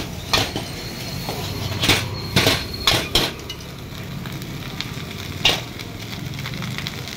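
Steel ladle clanking and scraping against a large iron wok as rice is stir-fried, about six sharp knocks, most of them in the first half, over a steady sizzle of frying.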